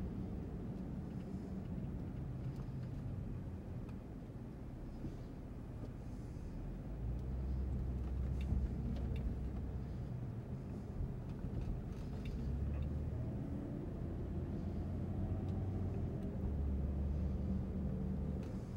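Car running along a road, a steady low engine and road rumble that swells a few times.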